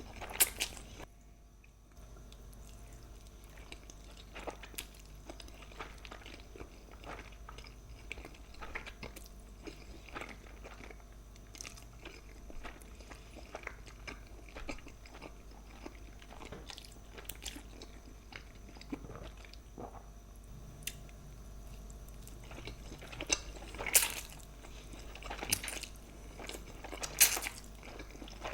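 A person chewing and biting food up close, with small mouth clicks throughout and a few louder, sharper bites near the end.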